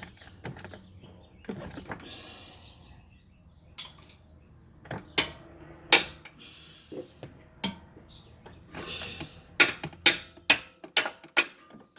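Hammer tapping a control arm bolt on a BMW X5 E70, metal on metal, to drive it out of its bushing. The sharp clanks come a few at a time, then in a quicker run of blows near the end.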